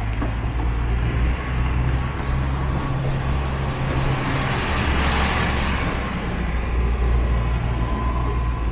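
Road traffic with a steady low rumble; one vehicle passes, swelling and fading about five seconds in.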